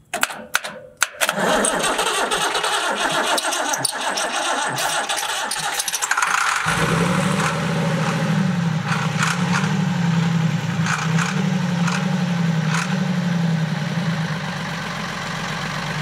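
Old Ford farm tractor's diesel engine being hot-wired and cranked on its starter for about five seconds after a few sharp clicks, catching about six and a half seconds in and settling into a steady run with a slightly wavering note. It is the first start after the tractor sat unused for seven years.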